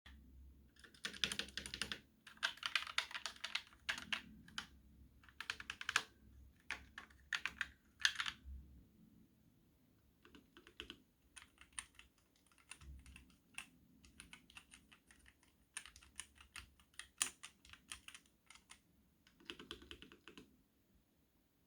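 Typing on an ASUS ROG mechanical gaming keyboard: quick runs of keystrokes in bursts. After about nine seconds the keystrokes become quieter and more spaced out.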